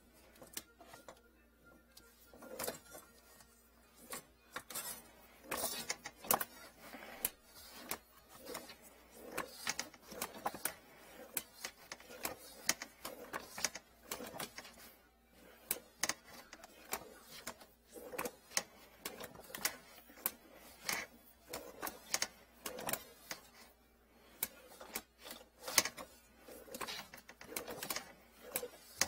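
Hand-turned cable reel of a drain inspection camera clicking and rattling irregularly as the yellow push cable is fed out into a blocked sink drain.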